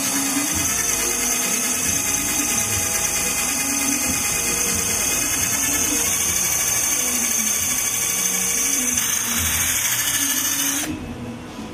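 Electric hand drill spinning a foam polishing pad against a car's painted bumper, buffing scratch and swirl remover into the paint; it runs steadily and stops near the end.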